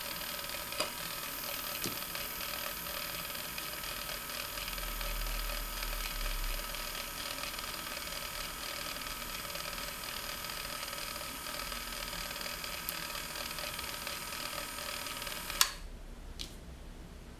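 Small electric motor of a homemade Van de Graaff generator and its power supply's cooling fan running steadily with a whine, the generator charging. About fifteen and a half seconds in a sharp click, and the whine cuts off as the machine is switched off.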